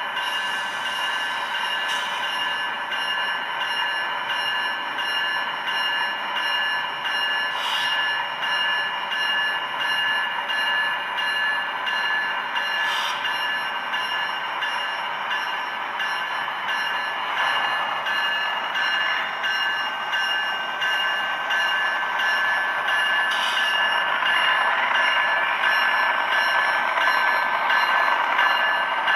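HO-scale GE ET44C4 model locomotive's ESU sound decoder playing its GEVO diesel engine sound steadily through the small onboard speaker, with a thin, bass-less tone and a few sharp clicks along the way. The engine sound swells a little louder in the last third.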